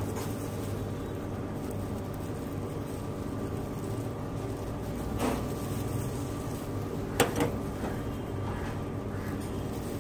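Steady background hum of stall machinery, with a light knock about five seconds in and a sharper double knock of utensils against the board or a steel bowl a couple of seconds later, as toppings go onto a sandwich.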